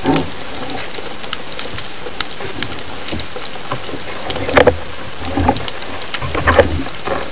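Underwater recording: a steady hiss with scattered sharp clicks, and several louder knocks and thuds from about four and a half to nearly seven seconds in, as a speargun and gloved hands work into a rock crevice.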